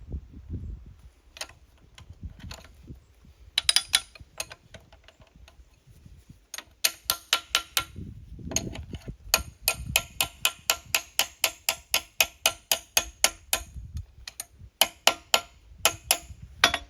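Ratchet wrench clicking in quick runs of sharp metallic clicks, about six a second, stopping and starting several times as a fastener on the excavator's hydraulic cylinder is worked.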